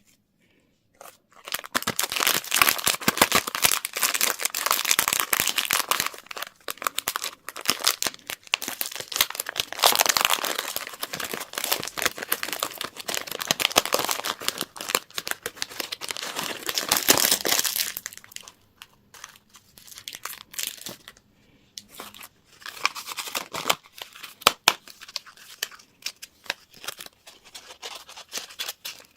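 Candy wrappers being crinkled and torn open by hand. The sound starts about a second and a half in as dense crackling, then thins to scattered crinkles and clicks after about 18 seconds.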